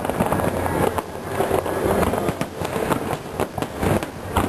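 Aerial fireworks bursting: a dense, irregular run of bangs and crackles.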